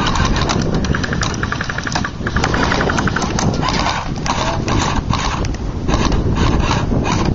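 Wind buffeting the microphone, with two short bursts of very rapid, evenly spaced clicking about one and two and a half seconds in and scattered sharp clicks after that.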